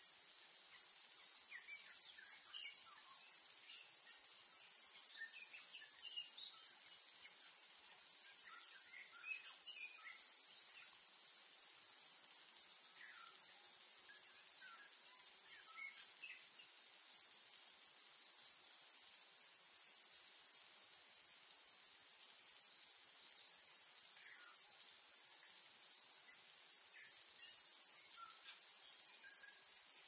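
A continuous high-pitched chorus of insects, steady throughout, with short bird chirps and calls scattered over it, clustered in the first half and again near the end.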